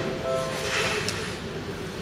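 Level-crossing warning bell ringing in repeated tones over the fading rumble of a passing Seibu Shinjuku Line train. The bell stops about halfway through.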